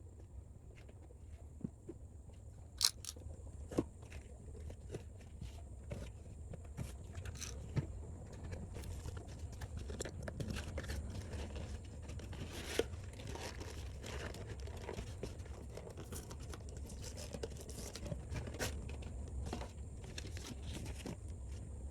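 Model kit packaging being handled and opened: rustling, scraping and crinkling of plastic and cardboard with scattered sharp clicks, the sharpest a few seconds in, over a steady low hum.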